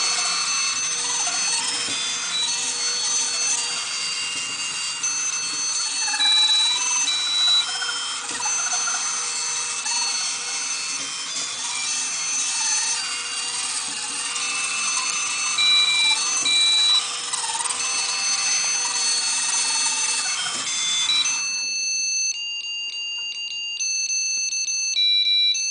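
A small line-following robot's drive motors whirring while an electronic buzzer plays a beeping tune. About 21 seconds in the motor noise stops and the beeping tune carries on alone.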